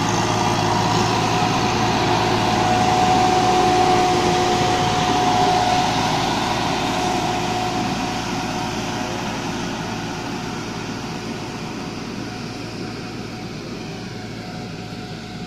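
27 hp Kubota compact diesel tractor towing an electrostatic air-blast sprayer, engine and sprayer fan running together as a steady whine over a wide rushing hiss. Loudest about four seconds in, then fading steadily as the rig moves away down the vine row.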